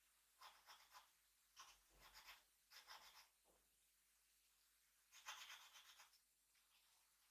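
Faint scratching of a drawing tool on paper in four bursts of quick strokes, the longest and loudest about five seconds in.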